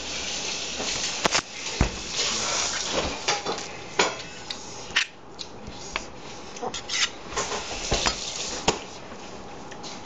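Irregular knocks and clatters of watermelons and utensils being handled on a table, over a rushing hiss that is strongest in the first few seconds.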